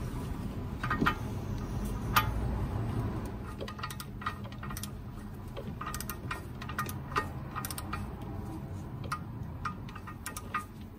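Torque wrench ratcheting as it tightens a screw-on oil filter housing cap: a string of light metallic clicks at irregular intervals.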